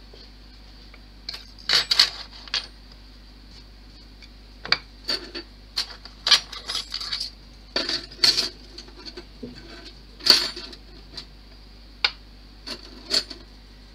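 Small hard objects clicking and clinking at an irregular pace, many short sharp knocks, as on a repair bench.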